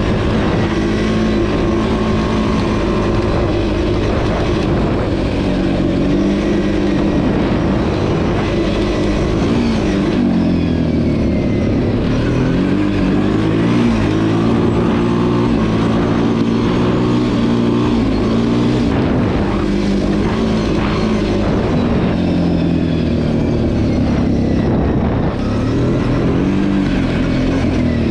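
Kawasaki KFX 700 ATV's V-twin engine running under throttle while being ridden, its pitch rising and falling several times as the rider works the throttle.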